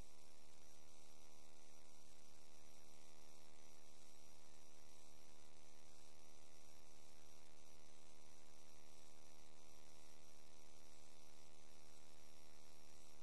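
Steady electrical hum with a stack of overtones over a faint hiss, unchanging throughout: interference picked up by the sewer inspection camera's recording system.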